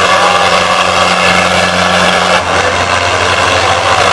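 Two farm tractors' diesel engines running hard at full load, pulling against each other in a tug-of-war, with a steady loud low drone. One of the engine notes drops away about two and a half seconds in.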